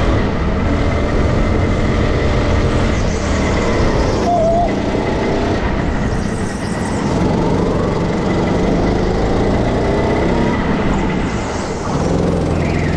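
Go-kart engine running hard with the driver aboard, its pitch rising and falling as the throttle opens and closes through the corners, with brief easing about halfway through and again near the end.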